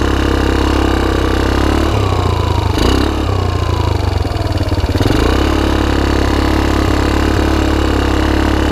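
Rapidity ATV's GY6 150cc single-cylinder four-stroke engine running under way, its valves freshly adjusted. About two seconds in its note falls for a few seconds, with a single knock partway through, then it settles back to a steady run.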